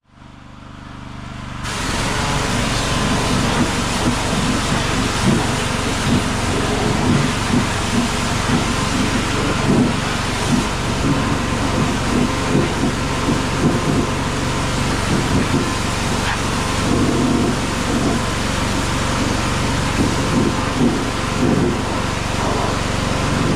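Pressure washer spraying water against a mud-caked grain truck's undercarriage and wheels: a steady hiss of spray over a constant engine hum. It fades in over the first two seconds.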